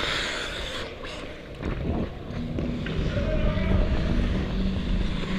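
Skating on an ice rink heard from a helmet-mounted camera: wind rumbling on the microphone as the skater moves, with a hissing scrape of skate blades on the ice in the first second.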